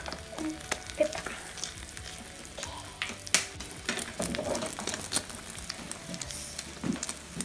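Egg omelette frying in a pan, sizzling steadily with irregular sharp crackles and pops.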